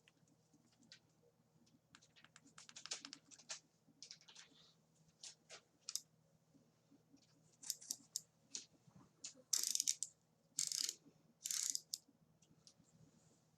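Handling of a metal tactical flashlight and its holster: scattered clicks, taps and scrapes, then three short scratchy rasps a little over half a second apart near the end.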